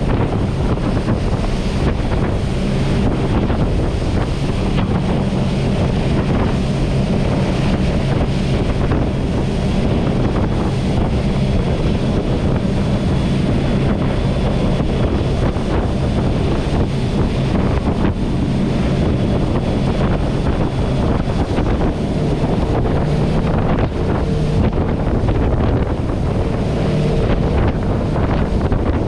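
Twin MAN V8 1200 hp marine diesel engines running steadily at speed, driving Marine Jet Power 350X waterjets. The rush of the jet wake and wind buffeting the microphone come through with them.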